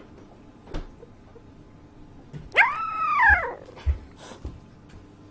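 A sleeping puppy dreaming, letting out one drawn-out whining howl about halfway through that rises and then falls in pitch, followed by a short thump.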